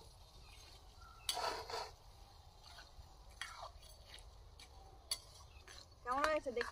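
Metal slotted skimmer spoon scraping and clicking against a steel kadai while stirring crabs frying in oil: one longer scrape about a second in, then a few single clicks. Near the end comes a short call with a falling pitch.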